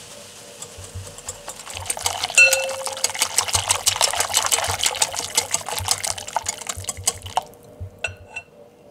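Wire whisk beating a runny egg batter in a glass bowl: quick wet sloshing with rapid clicks of the tines against the glass. One louder clink rings briefly about two seconds in, and the whisking stops about seven seconds in.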